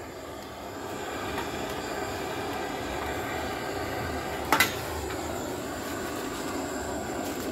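Portable gas torch on a canister burning with a steady hiss, its flame heating the motorcycle frame so it can be bent lower. A single sharp click about halfway through.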